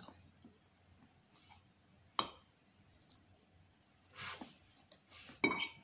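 Quiet eating sounds: a few sharp clicks of a metal fork against a plate, the loudest about two seconds in, with soft mouth and chewing sounds as a forkful of noodles is eaten.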